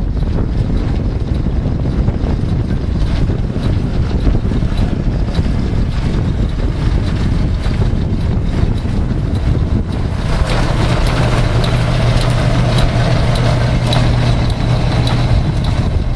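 Belt-driven machinery of a portable blacksmith shop running, with wind on the microphone. A steady low hum joins about ten seconds in.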